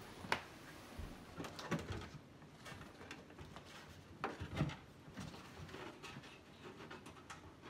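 Scattered light clicks and knocks of a Commodore SuperPET's case being handled and opened, with a louder cluster of knocks a little past halfway.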